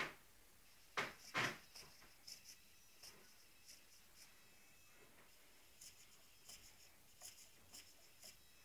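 Servos on a T-Rex 450SE RC electric helicopter moving in many short, faint bursts, each a brief high whine, as they are worked from the transmitter. Two louder knocks come about a second in.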